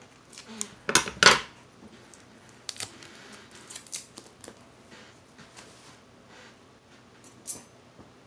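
Clicks and knocks of metal forceps and small plastic cups being handled: two loud knocks close together about a second in, then lighter scattered taps.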